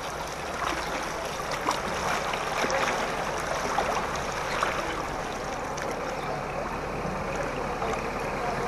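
Floodwater flowing, a steady rushing of water with a few faint small splashes.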